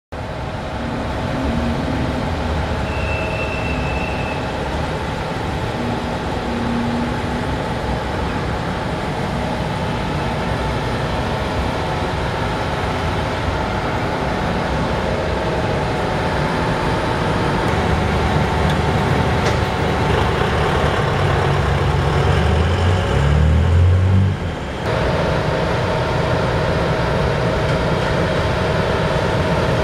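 Steady street traffic noise: vehicle engines running and passing. A heavy vehicle's low engine rumble builds up about two thirds of the way through and drops off suddenly.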